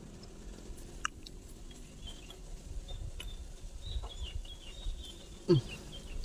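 Soft clicks and rustles of hands working a small lime over coconut-shell bowls, with faint high chirps in the background. The loudest thing is a short sound sliding down in pitch about five and a half seconds in.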